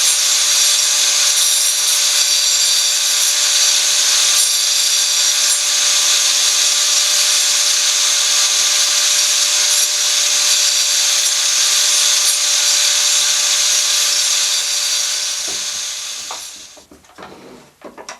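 Angle grinder fitted with a toothed saw blade, mounted in a homemade table rig, running and carving into wood: a loud, steady whine with rasping cutting noise. Near the end the power is cut and the blade spins down, followed by a few light knocks.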